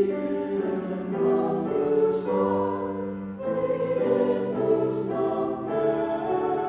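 Music: a choir singing slow, held chords that change about once a second.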